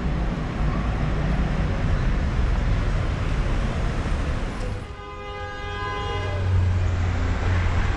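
Busy city street traffic noise, then about five seconds in a vehicle horn sounds one steady note for about a second and a half over the low rumble of a passing engine.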